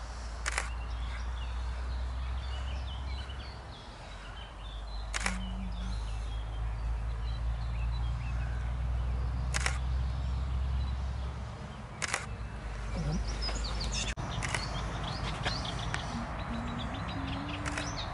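Camera shutter clicking six times, a few seconds apart, over birds chirping and a low steady rumble.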